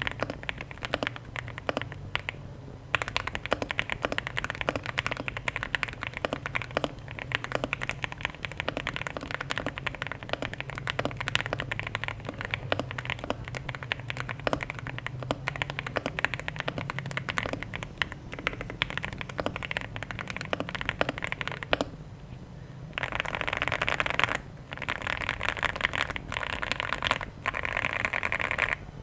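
Leobog Hi8 mechanical keyboard typed on continuously, its lubed Alpaca linear switches in an all-foam, PC-plate build with PBT keycaps giving a rapid stream of key clacks. The typing pauses briefly twice, and there are denser runs of fast keystrokes near the end.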